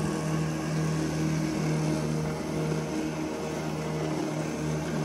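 Home-built remote-controlled electric-drive lawn mower running, a loud steady mechanical hum over a wide rushing noise.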